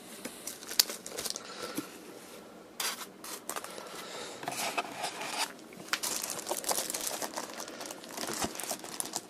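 Clear plastic bag crinkling and styrofoam packing rubbing and creaking as a bagged clock radio is handled and lifted out of its foam box insert, in irregular bursts of crackle with a sharp click about a second in.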